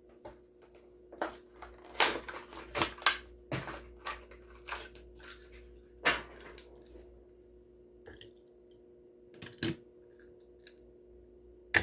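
Plastic blister packaging of a die-cast toy car crackling and snapping as it is pried open by hand, a quick string of sharp crinkles that thins out after about seven seconds, with one sharp click near the end.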